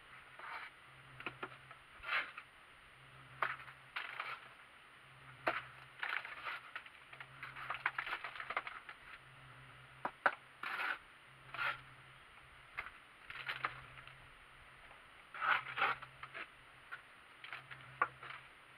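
Trowel scraping mortar off a hand-held board and throwing it onto a window reveal being rendered: irregular short scrapes and slaps, one every second or two.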